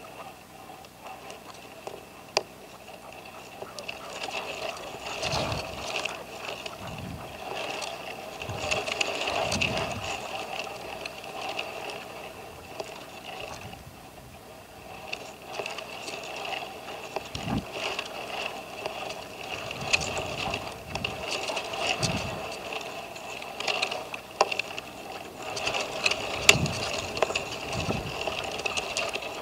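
Red-legged partridges calling, a caged decoy and a wild bird, in a long run of harsh chattering notes that swell and fade, with a few low rumbles.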